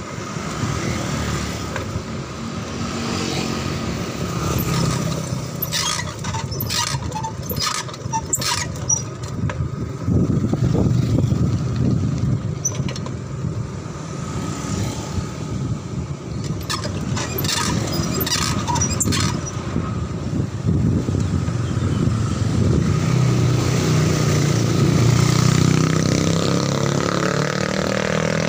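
Street traffic and wind noise heard from a moving bicycle's handlebar camera, with motorcycles and cars going by. Two clusters of sharp clicks or rattles come about a quarter and two-thirds of the way in, and a motorcycle engine rises near the end.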